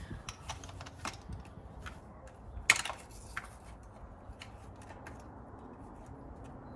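Scattered clicks and taps of hand tools and parts being handled while pulling spark plugs, with one sharp metallic clack about two and a half seconds in.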